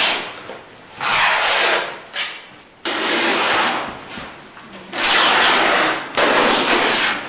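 Painted canvas being torn and handled: a series of rough, rasping rips of about a second each, six in all, with a short one about two seconds in.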